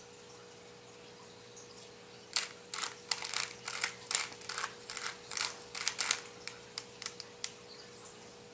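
Plastic 3x3 Rubik's cube being twisted by hand: a quick, irregular run of clicks and clacks as the layers turn. It starts about two seconds in and lasts about five seconds, over a faint steady hum.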